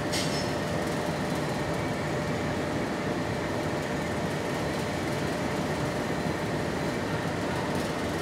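Steady machine noise of a ceramic tunnel kiln and its ventilation fans running, with a faint steady hum through it and a short click right at the start.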